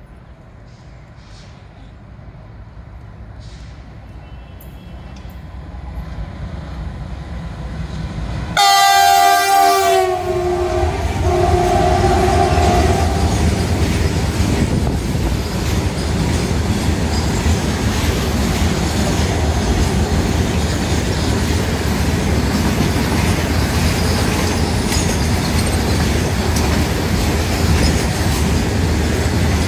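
A WDG-6G diesel locomotive hauling a goods train approaches with a rising rumble. About eight and a half seconds in it sounds its horn, a loud blast of several tones lasting about four seconds. The long rake of covered BCNHL wagons then rolls past with a steady clickety-clack of wheels over the rail joints.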